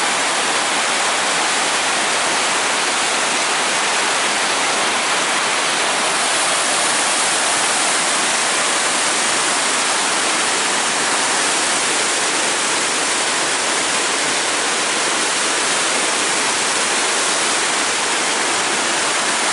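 Dam outflow water churning and rushing through the concrete outlet channel: a loud, steady rush of whitewater that holds unchanged throughout.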